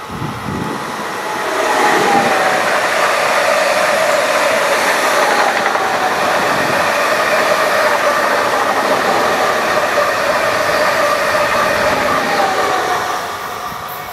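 BRB Stadler FLIRT electric multiple unit passing at speed: wheels running on the rails with a steady whine from the train. It builds over the first two seconds and fades near the end as the train draws away.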